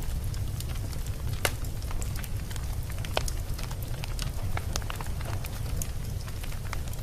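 Wood fire crackling in a fireplace: a steady low rumble of flames with irregular sharp pops and snaps, the loudest about one and a half and three seconds in.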